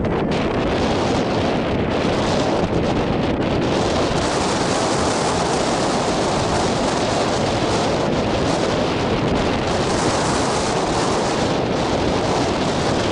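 Wind buffeting the camera microphone: a steady, loud rushing noise.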